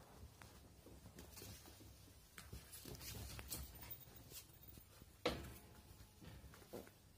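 Faint scattered patter and scuffling of Jack Russell terrier puppies at play, with one sharp knock about five seconds in.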